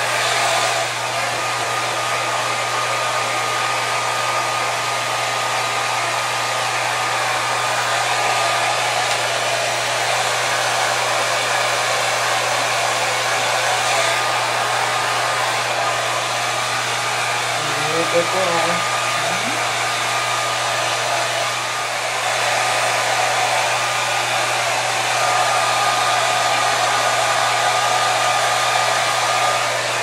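Electric hair dryer blowing steadily, with a constant hum under its rushing air, drying a cat's fur. It dips slightly about two-thirds of the way through, then runs a little louder near the end.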